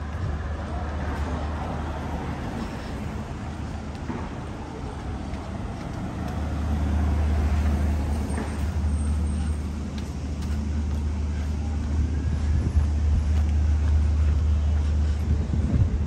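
Outdoor city street ambience with a steady low rumble that gets heavier about six seconds in.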